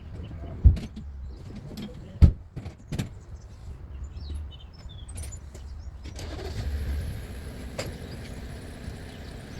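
A few sharp knocks of work on a car over a steady low rumble, then from about six seconds in the steady noise of a vehicle running close by.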